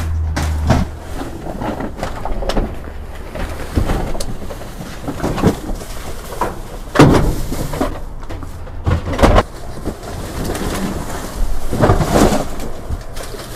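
Rummaging through a store dumpster: cardboard boxes, bags and loose items rustling, scraping and knocking in irregular bursts, with a low hum in the first few seconds.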